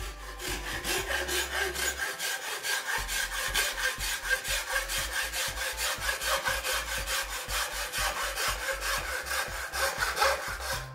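Hacksaw cutting through a decorative gypsum brick tile by hand: a steady back-and-forth rasp of about three strokes a second.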